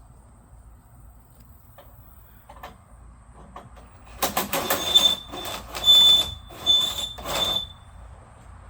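Four loud scraping squeals about a second apart, each with the same high steady ring, starting about four seconds in: something mechanical being worked stroke by stroke.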